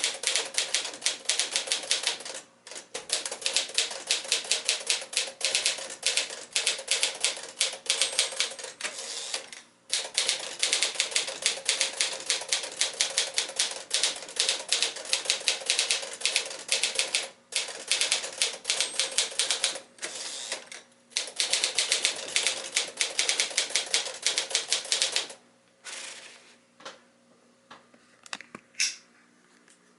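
1955 Smith-Corona Silent-Super manual portable typewriter typing at speed: a fast run of key strikes broken by a few brief pauses, thinning to a handful of scattered clicks over the last few seconds.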